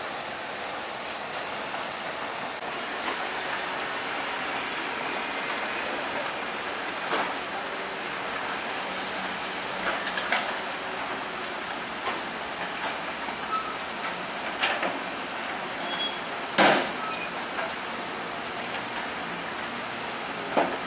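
Bulldozer working: its steel crawler tracks squealing with high-pitched metallic whines and clanking over a steady mechanical noise, with scattered sharp clanks and one loud clank near the end.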